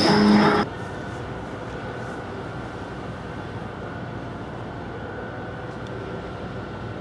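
Music that cuts off abruptly under a second in, then a steady low rumble with a faint steady high whine: the background noise of an open railway station platform with no train moving.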